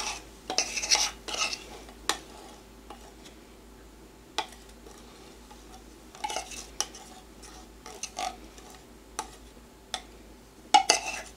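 A metal spoon scraping around the inside of an open can of sweetened condensed milk, scooping out the last of it: short scrapes every second or two, with a few sharp clinks of spoon on can.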